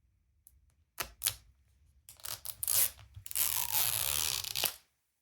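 Tear strip being ripped around a hard plastic toy capsule to open its second layer: a couple of clicks about a second in, handling rustle, then a ripping sound lasting about a second and a half that ends in a sharp snap.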